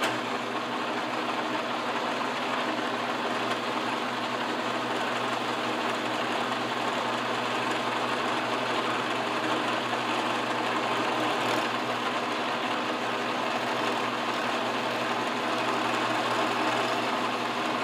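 Milling machine running steadily while an end mill cuts a radius in a metal plate: a constant motor hum under dense cutting noise.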